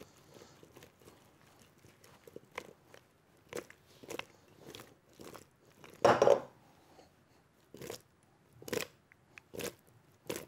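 Seasoned boiled potato pieces tossed in a glass mixing bowl: irregular soft knocks and squelches of the pieces against the glass and each other, with one louder clatter about six seconds in.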